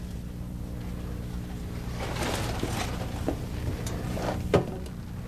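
A steady low hum, with faint rustling about two seconds in and a single sharp knock about four and a half seconds in.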